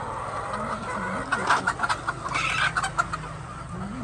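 A flock of hens clucking, with short sharp calls starting about a second in over a steady low hum.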